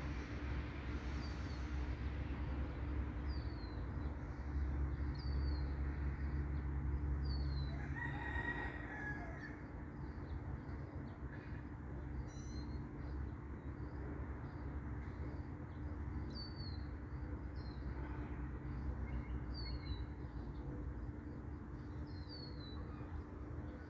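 Birds calling: a short hooked chirp repeated every second or two, and a longer call about eight seconds in, over a steady low rumble that eases after about eight seconds.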